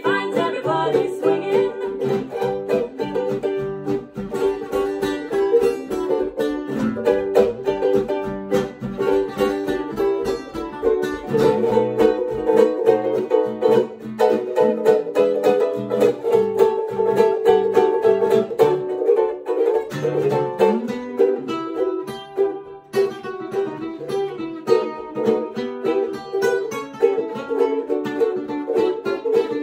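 Two ukuleles and an acoustic guitar strumming together through an instrumental passage of a Christmas song, with a sustained melody line held over the strumming.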